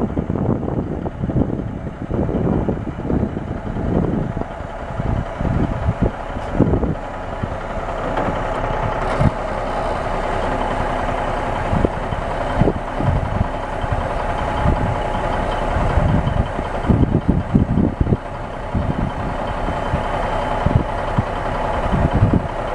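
Caterpillar 3406 diesel engine of a dump truck running steadily while the dump bed is lowered, the engine sound growing a little fuller about eight seconds in. Gusts of wind buffet the microphone.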